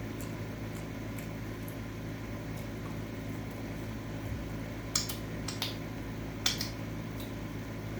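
Room air-conditioner fan running with a steady low hum, with three short sharp clicks about five seconds in and over the next second and a half.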